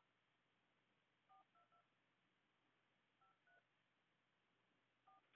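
Phone keypad dialing tones (DTMF): faint short two-tone beeps as keys are pressed, in three small groups of one to three beeps.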